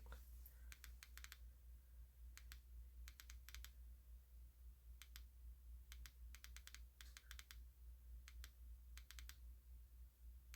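Faint runs of quick clicks from the Wurkkos HD01 Pro flashlight's push buttons, pressed several times in a row to cycle through its modes, such as a triple click for strobe.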